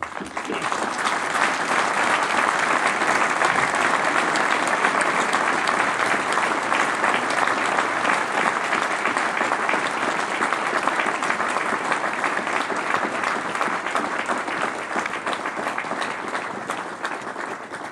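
Crowd applauding at length. The clapping swells in the first second or so, holds steady, and tapers off near the end.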